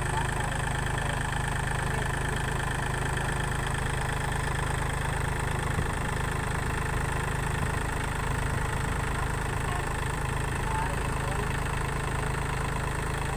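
Kubota compact tractor's diesel engine running steadily while the tractor drives slowly.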